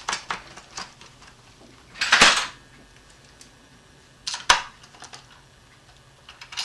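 Small metal nut and bolt clicking quickly as the nut is spun onto the bolt by hand, the clicks dying away within the first second. About two seconds in comes a short, loud rustling scrape, and a couple of sharp metal clicks follow a couple of seconds later.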